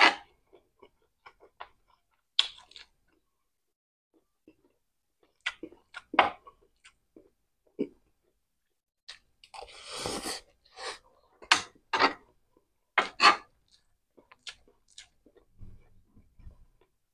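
Close-miked eating sounds of a person eating pancit noodles: chewing and short, sharp mouth smacks scattered irregularly, with a longer slurp of noodles about ten seconds in.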